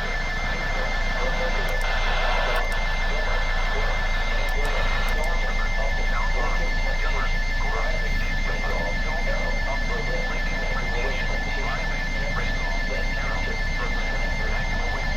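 Weather radio receiver with weak reception: a steady hiss of static, with two high, steady whistle tones running through it and a faint voice barely audible underneath.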